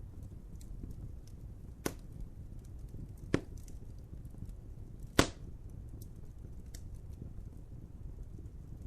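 Wood fire crackling: a steady low rumble with faint small crackles, broken by three sharp pops of burning wood about two, three and a half and five seconds in, the last the loudest.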